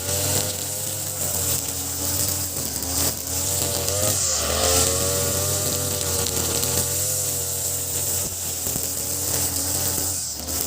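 Ogawa BG330 33cc two-stroke brush cutter, fitted with a larger 43cc carburetor, running at high revs while cutting grass. Its engine note dips and recovers a few times, most clearly about three to four seconds in and again near the end.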